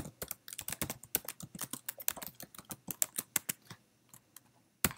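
Typing on a computer keyboard: a quick run of key clicks for about the first three and a half seconds, then a few scattered key presses and one sharper press near the end.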